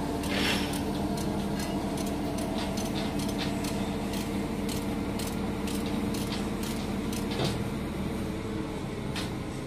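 Heavy site machinery engine running steadily while a concrete spun pile is lifted and swung into place, with a scatter of light metallic clicks and clinks through the middle of it.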